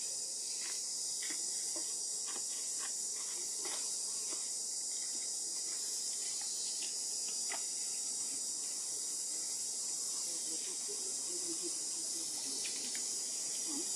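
Steady high-pitched drone of an insect chorus, with scattered faint short chirps and ticks over it.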